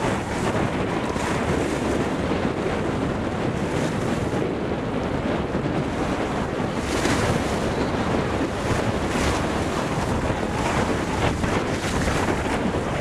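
Wind buffeting the microphone over the steady wash of choppy sea water, with a low rumble throughout and a brief gust-like swell about seven seconds in.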